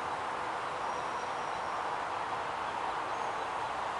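Steady outdoor background hiss with a few faint, thin, high-pitched bird calls.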